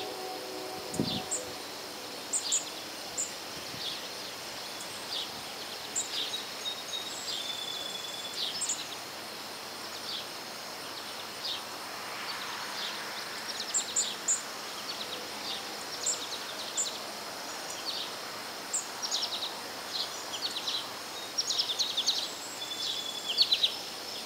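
Wild birds chirping: short, high calls scattered throughout and coming more often near the end, over a steady high hiss of outdoor background noise.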